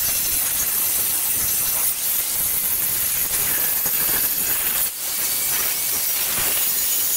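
Angle grinder with a thin cut-off disc cutting through a steel knife blank held in a vise: a steady, high, hissing grind that briefly eases off about five seconds in.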